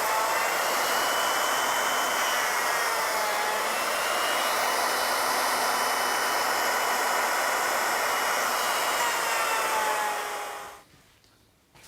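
Wood router on an ornamental milling machine running at high speed and cutting wood, a steady whine whose pitch wavers slightly under load. It is switched off about a second before the end and dies away quickly.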